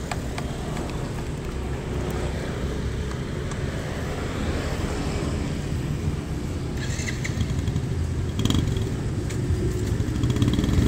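Motorcycle engine running with a steady low rumble that grows louder near the end.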